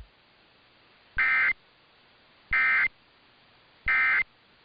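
Emergency Alert System End-of-Message signal: three short bursts of SAME digital data tones, each about a third of a second long and repeated about every 1.35 s, marking the end of the alert.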